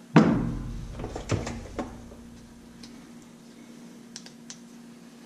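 A Fluke digital multimeter set down on a wooden workbench with a sharp knock, followed by a few light clicks as it and its test leads are handled, then a faint steady hum.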